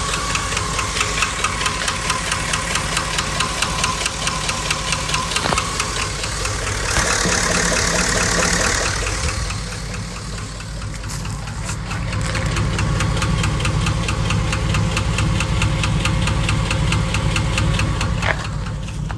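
2005 Chevy Silverado engine running with a fast, even ticking knock, briefly louder about seven seconds in. The owner is unsure whether it is rod knock, lifter tick or piston slap.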